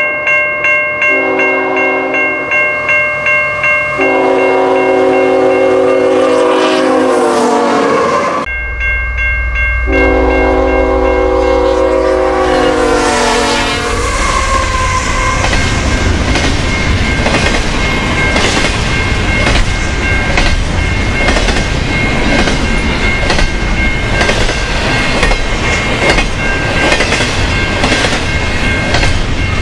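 CN stack train led by GE ET44AC locomotives passing at track speed: the lead locomotive's air horn sounds several blasts, its pitch dropping as the locomotive goes by about eight seconds in. A loud low rumble from the passing locomotives follows, then the rhythmic clickety-clack of double-stack container cars' wheels over the rail joints.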